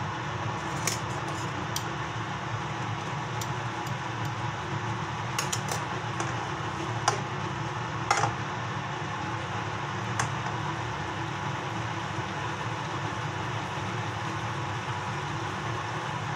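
Beef and mushrooms sizzling in a steaming frying pan over a gas flame, with a few scattered pops and clicks in the first ten seconds, over a steady low hum.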